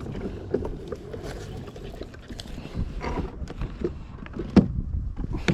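Irregular clicks and knocks over a low rumble: tackle and boat handling noise while a hooked fish is being played. One sharp knock comes about four and a half seconds in.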